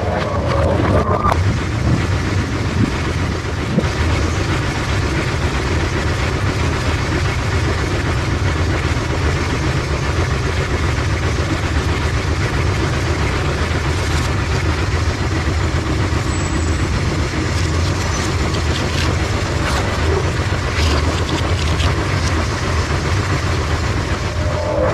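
Automatic bowling pinsetter running through its cycle: a steady mechanical rumble, with scattered knocks and clatter from the deck setting a fresh rack of pins and the sweep bar coming down.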